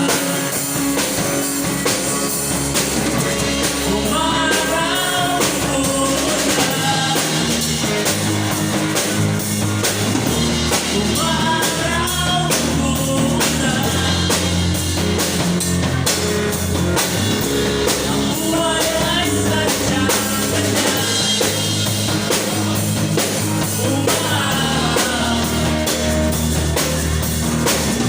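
Background rock music with drums, guitar and a singing voice.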